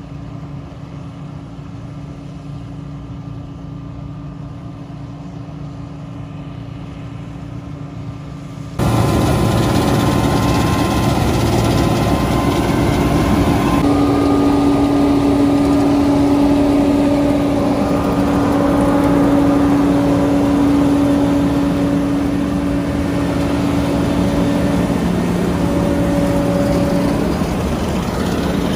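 Combine harvester running steadily during wheat harvest, a continuous engine and machinery hum with steady tones. It jumps abruptly louder about nine seconds in.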